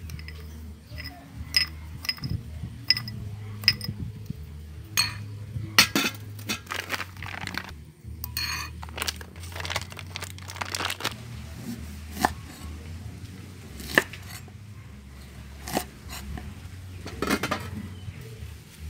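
Metal spoon clinking and scraping against a ceramic bowl, many sharp taps and short scrapes over a steady low hum.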